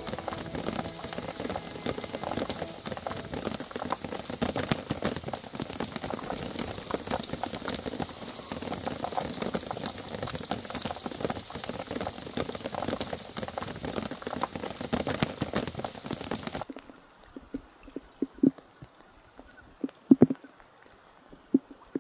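Steady rain falling, a dense hiss of fine drops. About 17 seconds in it cuts abruptly to a much quieter background with a few separate sharp drips or taps.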